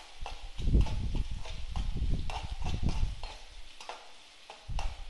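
A spatula clacking and scraping against an aluminium kadai as onions and tomatoes are stirred: a string of irregular knocks, with low thumps in the first three seconds or so.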